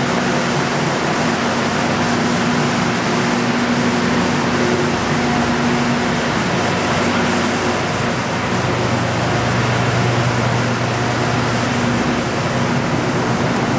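Loud, steady machinery noise in an underground hydroelectric plant's equipment room: an even rush of ventilation and running equipment with a constant hum, a deeper hum joining for a few seconds past the middle.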